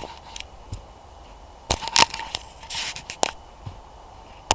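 Handling noise close to a helmet-mounted camera's microphone: a few sharp clicks and knocks with a brief rustle, as gear is handled.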